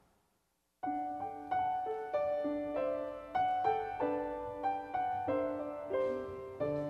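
Grand piano playing the introduction to the sung responsorial psalm, starting about a second in after a brief silence, with separate notes and chords ringing and decaying in a steady rhythm.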